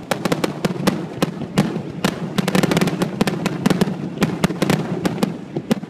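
Fireworks finale: a rapid, unbroken string of sharp bangs and crackling reports, several a second, coming thickest a little before the middle.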